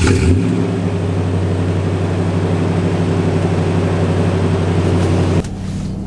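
Toyota 4Runner V8 idling steadily just after starting, heard at its exhaust tip. A little before the end it drops to the quieter, muffled engine hum heard from inside the cabin while driving.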